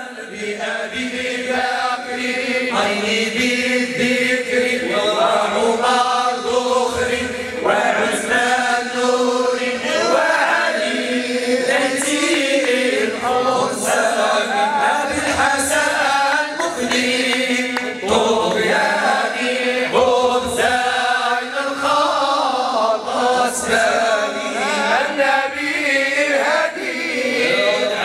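Group of men chanting devotional praise songs (madih) together, several voices over a steady held low note.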